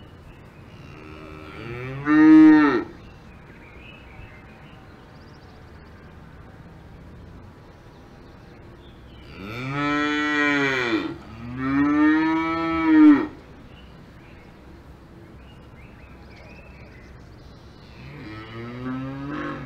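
Cows mooing: four long moos, one about two seconds in, two back to back around the middle, and a fainter one near the end. Each rises and then falls in pitch.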